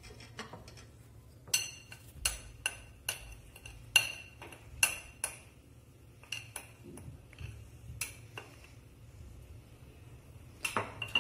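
Metal spoon clinking against a glass bowl while stirring chocolate cookie dough: irregular taps, several with a brief ring.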